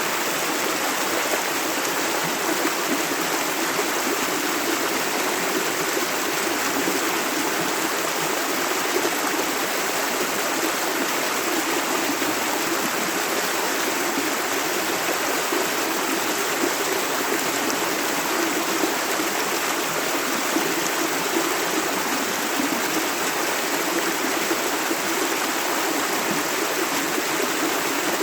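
Shallow river flowing steadily over stones: a continuous rushing and babbling of running water with no pauses.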